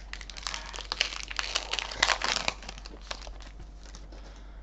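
Foil wrapper of a Pokémon Sword & Shield booster pack being torn open and crinkled, busiest for the first two and a half seconds. After that come only a few light ticks as the cards are handled.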